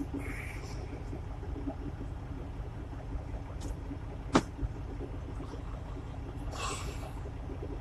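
Low steady rumble of the truck's engine running, heard inside the cab, with one sharp click about halfway through.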